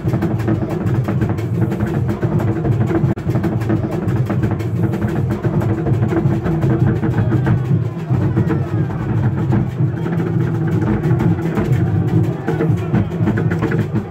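Asante traditional drumming: large barrel drums, carried on the heads of attendants, beaten in a fast, dense, unbroken rhythm.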